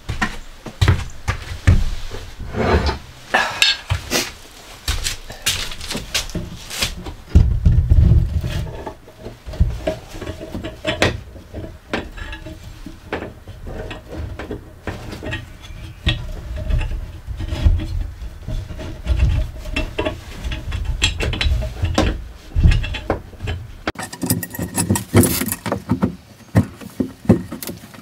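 Wooden 2x10 board and metal sink support bars being handled and test-fitted against a van wall: irregular knocks, clunks and metal clinks, with heavy thuds about eight seconds in and a busier clatter near the end.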